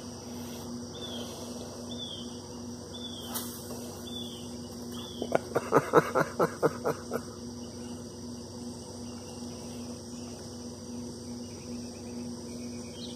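Insects chirping and buzzing steadily over a constant low hum, with short repeated chirps in the first few seconds. About halfway, a quick run of about ten loud short pulses over roughly two seconds.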